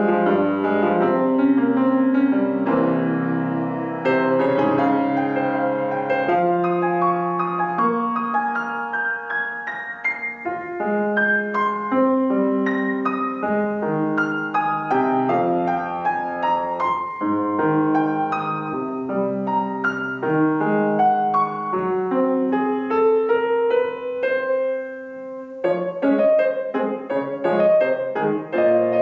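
Estonia concert grand piano played solo: a classical piece of quick, distinct notes. A rising passage comes near the end, breaks off briefly, and the playing resumes.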